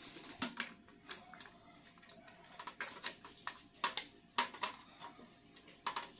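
Scattered, irregular light clicks and taps of small hard parts being handled, a little more frequent near the end.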